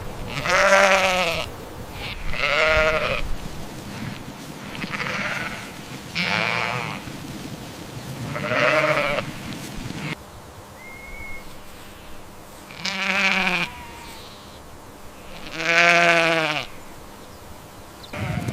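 Sheep bleating repeatedly: about seven quavering bleats, each under a second long and a couple of seconds apart.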